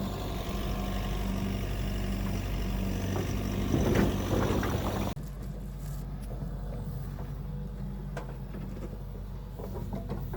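An engine idling steadily with a low hum. A louder rush of noise comes around four seconds in, and about five seconds in the higher noise drops away abruptly while the hum continues.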